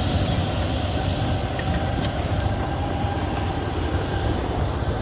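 CAT D8 bulldozer running, a steady heavy rumble with a faint constant whine above it.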